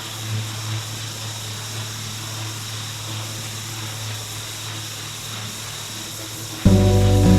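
Engine-driven pressure washer running steadily, with the hiss of the water jet spraying. Music starts near the end.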